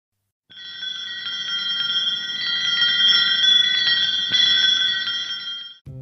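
Shimmering, high bell-like chimes: many light strikes over steady ringing tones. The sound starts about half a second in, swells, and stops just before the end as low background music comes in.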